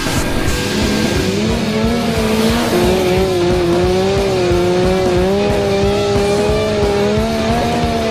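Car tyres squealing in one long, wavering drift, with music playing underneath.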